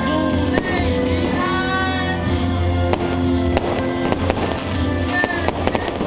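Music playing steadily while aerial firework shells burst overhead, several sharp bangs and crackles cutting through it, coming closer together near the end.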